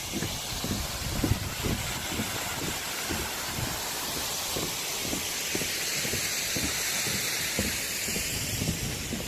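Walking footsteps at a steady pace, about two or three steps a second, over a steady rushing hiss that swells through the middle and latter part.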